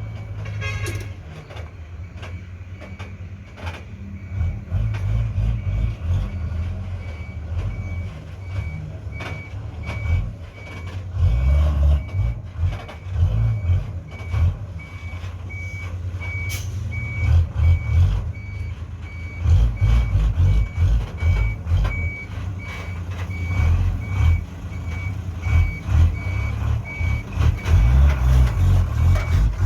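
Diesel heavy machinery working, its engine revving up and down over and over under load, while a reversing alarm beeps steadily throughout.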